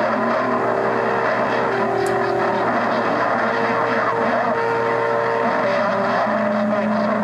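CB radio receiver on a crowded channel during skip: steady static hiss with heterodyne whistles from several stations transmitting at once, held tones at different pitches that come and go every second or two.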